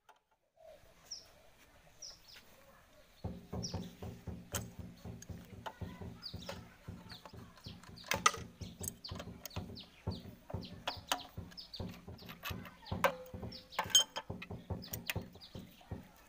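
Small birds chirping over and over in short, falling notes, over a steady low drone that starts suddenly about three seconds in, with scattered sharp clicks.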